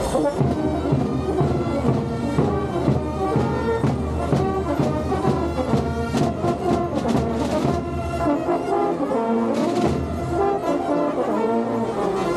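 Brass band playing a folk tune over a steady beat.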